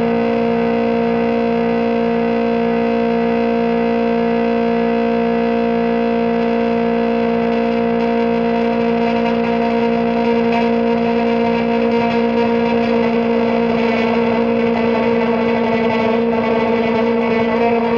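An amplified drone of steady held tones shaped by effects, with a low pulse beating under it about twice a second. About eight seconds in, plucked strings begin playing over the drone and grow busier.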